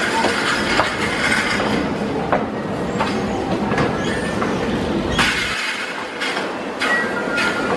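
Subway train running on steel rails: a steady rumble with repeated knocks and clatter from the wheels, and a thin high squeal near the end.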